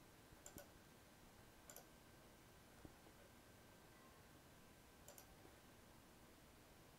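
Near silence, broken by four faint, widely spaced computer mouse clicks.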